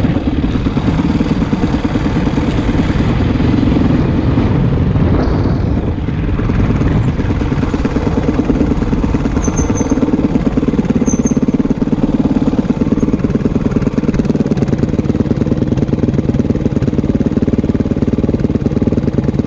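Honda CRF450X's single-cylinder four-stroke engine running steadily, without revving.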